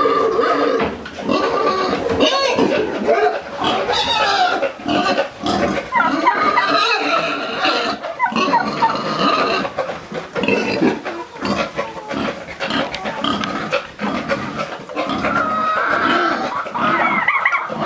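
Pigs grunting and squealing, several at once, without a break.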